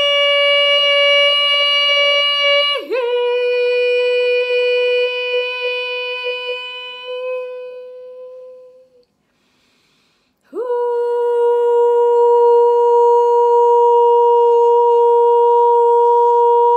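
A woman's voice toning long, wordless held notes. The first note drops slightly in pitch about three seconds in and fades away; after a pause of about a second and a half, a new note starts and holds steady.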